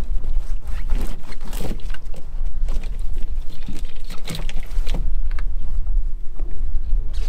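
Scattered knocks and clattering as a netted lobster pot is handled and emptied, over a steady low rumble.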